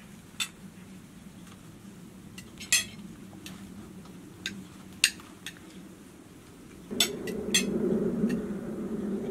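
Cutlery clinking against plates and a metal pot during a meal: scattered sharp clinks, a second or so apart. About seven seconds in, a steady low noise comes up beneath them.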